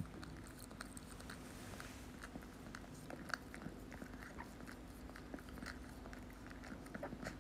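Two puppies licking and nibbling an ice lolly: a run of soft, wet, irregular clicks and smacks over a faint steady hum.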